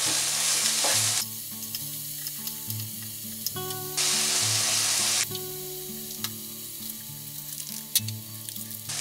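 Strips of Parma ham frying in a pan, a steady sizzle that is loudest during the first second and again for about a second starting four seconds in, softer in between with small pops.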